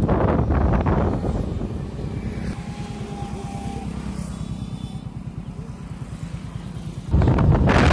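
Motorcycle engine running on the move, with wind buffeting the microphone. The wind drops for a few seconds, letting the engine's regular low firing pulses come through, then returns loudly and suddenly about seven seconds in.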